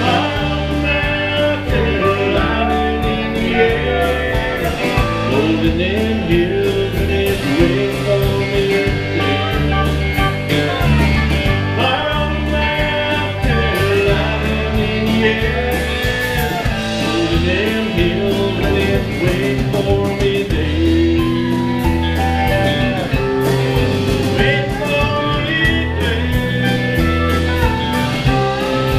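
Live country band playing with electric guitars, bass and drums keeping a steady beat, and a singer.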